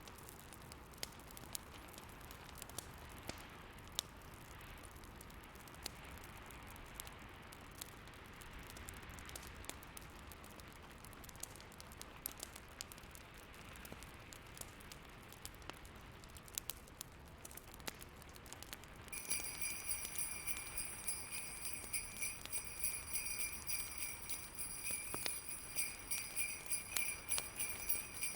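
Fireplace crackling over the low steady wind of a snowstorm. About two-thirds of the way in, jingle bells start shaking in a pulsing rhythm and become the loudest sound.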